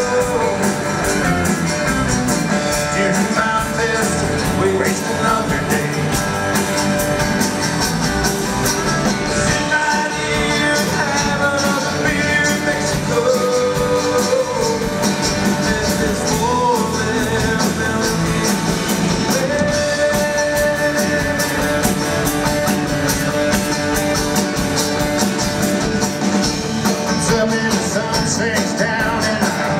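Live rock band playing, with electric and acoustic guitars over drums and cymbals, and a singer's vocals; a lead guitar line bends and slides through the middle.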